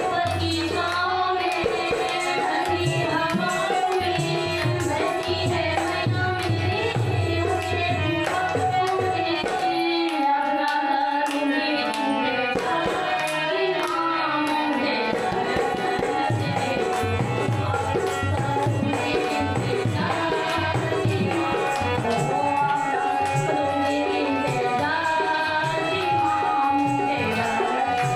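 Devotional bhajan music: tabla-style hand drums keep a steady rhythm under a sustained melody line. The drums drop out for a few seconds around ten seconds in, then resume.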